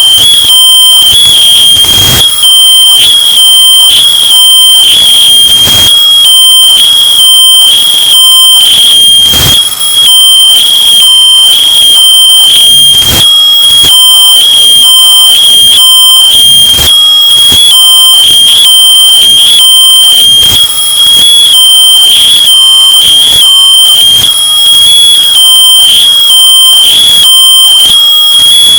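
Smoke detector alarm sounding one continuous, very loud high-pitched tone. It is heavily clipped and distorted from extreme bass boosting, which adds a constant crackle.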